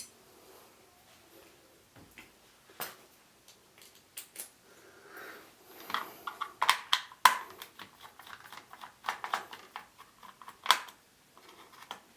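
Screws being undone with a small screwdriver from an LED light panel's housing: scattered small clicks, taps and scrapes, sparse at first and busier and louder from about halfway through.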